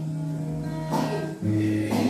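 Background music: held notes that change about halfway through, with a percussive hit about once a second.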